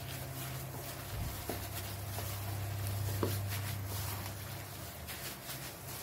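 Hand in a plastic glove mixing masala-coated pork pieces in a steel pot: soft squelching and rustling of the plastic, with a couple of light knocks, over a steady low hum.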